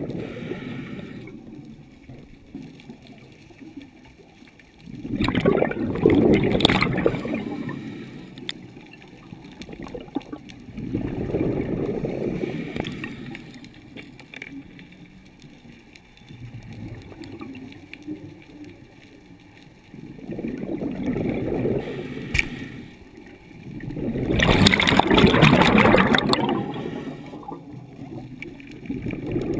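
Scuba diver's breathing through a regulator underwater, heard as bursts of bubbling and rushing about every five to ten seconds, with two louder exhalations, one about five seconds in and one near the end.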